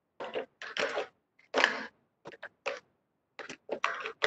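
A run of short, irregular clicks and rustles with dead silence between them.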